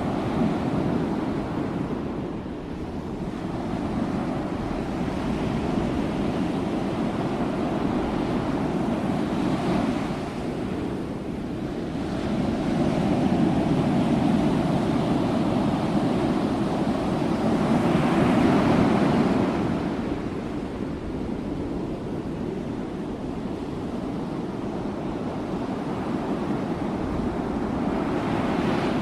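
Ocean waves breaking on a shore, a continuous wash of surf that swells and eases in slow surges, with a stronger break about two-thirds of the way through.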